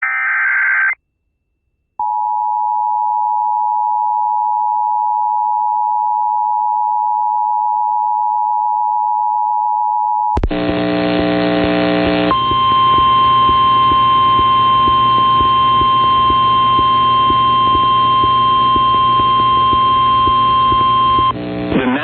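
Emergency alert tones. It opens with the tail of a SAME data burst, then the two-tone EAS attention signal holds steady for about eight seconds. About ten seconds in, a louder, harsher alert tone cuts in and settles into one steady high tone over a buzz, typical of the NOAA Weather Radio warning alarm tone. A voice message starts right at the end.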